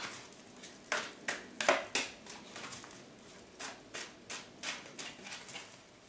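A deck of tarot cards shuffled by hand: a string of irregular soft slaps and riffling clicks as the cards are worked, the sharpest about a second in and just before two seconds.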